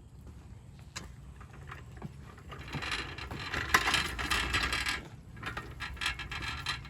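Metal hand truck dolly rattling and scraping as it is moved, in two stretches: a louder one starting a bit under three seconds in, then a weaker one near the end.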